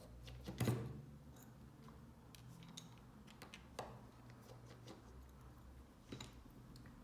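Faint, scattered clicks and taps of a small precision screwdriver and tiny screws as the screws of an iPhone 6's home-button bracket are undone and set down, over a low steady hum.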